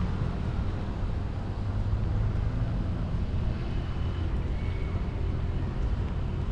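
A motor vehicle engine running steadily: a low, even hum.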